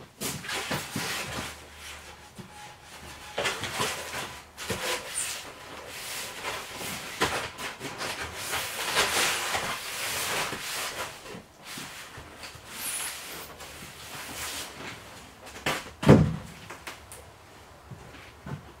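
Large foil-faced foam sheathing boards being handled and pushed into place against a wall: irregular rubbing and scraping with small knocks, and one heavy thump near the end.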